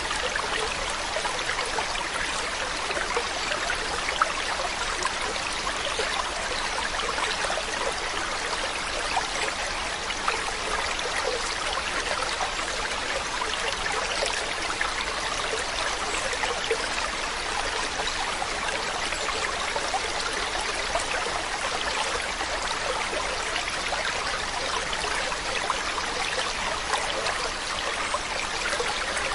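Mountain stream running over rocks: a steady rush of flowing water with small splashes and trickles throughout.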